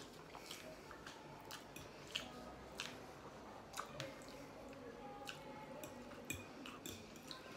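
A fork twirling spaghetti in a ceramic plate, its tines giving scattered light clicks and scrapes against the plate, mixed with quiet chewing.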